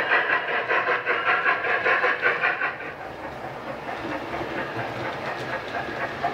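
Model Flying Scotsman steam locomotive's DCC sound decoder playing rapid, even exhaust chuffs through its on-board speakers, with the wheels running on the track. About three seconds in, the sound drops to a quieter, steadier rumble and hiss.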